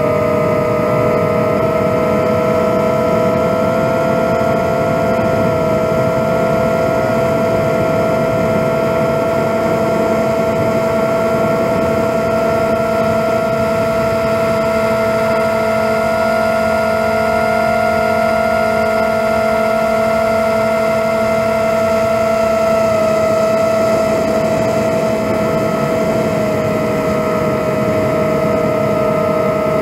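A 7-inch FPV quadcopter's motors and propellers whining steadily in flight, a layered buzzing drone whose pitch shifts only slightly, over a rushing noise.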